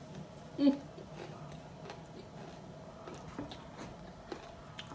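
Person eating close to the microphone: biting and quiet chewing with small scattered mouth clicks, and a brief murmur less than a second in.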